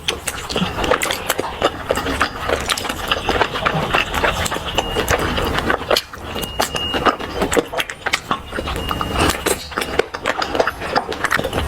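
Mouth chewing a crunchy snack, with many quick, irregular crunching clicks.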